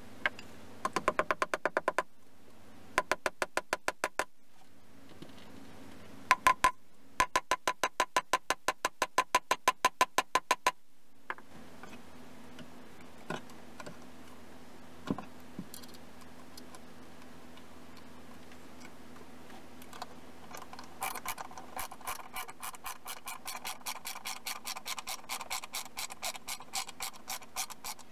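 Rapid trains of sharp mechanical clicks, about six to eight a second, in several bursts of one to four seconds, then a softer, longer run of clicks near the end, over a low steady hum.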